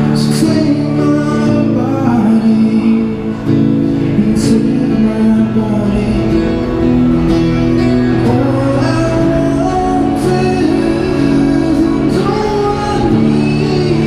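A busker singing a folk-style song over acoustic guitar, played through a small portable amplifier, with steady held notes underneath the voice.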